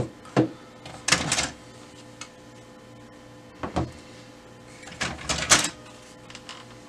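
Plastic clicks and knocks as toner cartridges are unlatched and lifted out of a Brother MFC-L9550 drum unit and set down on a table, in several short clusters over a faint steady hum.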